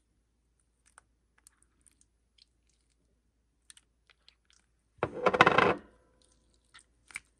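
Clear soap-based no-glue slime being stretched and squeezed by hand: scattered faint sticky clicks and pops, then a loud wet squelch about five seconds in that lasts under a second, and a couple more pops near the end.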